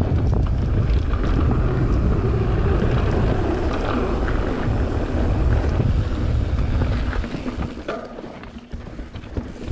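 Wind buffeting an action camera's microphone over the rumble of mountain bike tyres rolling fast on a dirt trail. About seven seconds in the rush drops away as the bike slows, leaving scattered clicks and rattles from the bike.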